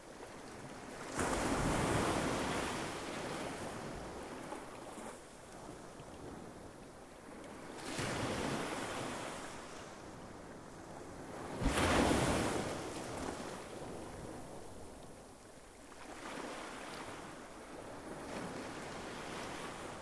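Small sea waves breaking on a beach and washing back. Each break starts suddenly and fades into a hiss over a few seconds: clear breaks about a second in, about eight seconds in, and about twelve seconds in (the loudest), then a softer one a few seconds later.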